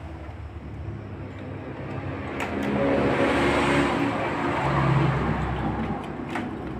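A motor vehicle's engine rising and then fading as it passes, with a couple of light clicks from metal parts being handled about two and a half seconds in.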